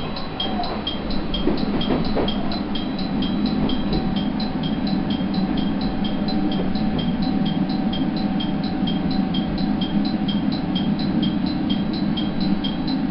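Diesel railcar heard from the driver's cab, running slowly into a station with a steady low engine and running rumble. A regular high ticking, about two or three a second, sounds over it throughout.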